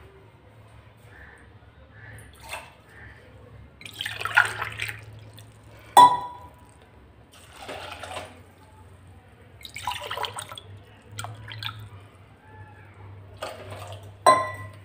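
Water poured from a glass into a steel bowl of soaked sabudana (sago pearls) in several short pours, with a sharp clink against the bowl about halfway through and again near the end.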